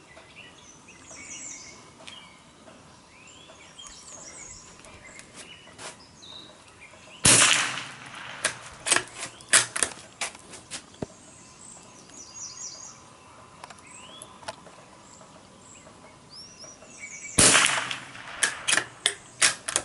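Two rifle shots from a Ruger American rifle about ten seconds apart, the first about seven seconds in and the second near the end, each ringing out briefly and followed by a run of sharp clicks and knocks over the next few seconds. Birds chirp faintly throughout.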